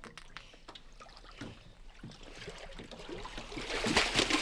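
Water splashing and sloshing, with scattered small knocks, growing louder near the end.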